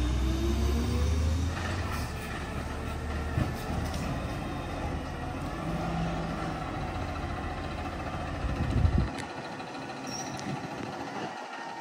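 Garbage truck's diesel engine running with a steady low rumble, which ends about nine seconds in after a brief louder burst, leaving a fainter steady hum.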